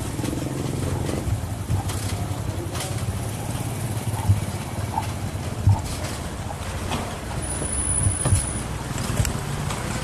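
Steady low rumble of wind buffeting the microphone and tyre noise from a moving e-bike, broken by a few sharp knocks.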